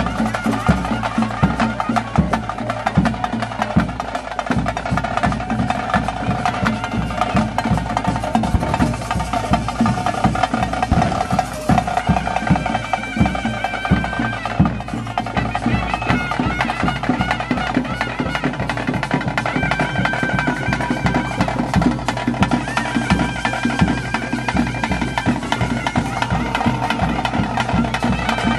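Bhoota kola ritual music: fast, steady drumming with a shrill reed pipe playing a held, wavering melody over it.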